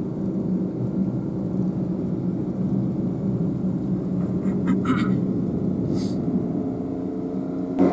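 Car driving, heard inside the cabin: a steady low drone of engine and road noise, with a couple of brief higher sounds about five and six seconds in.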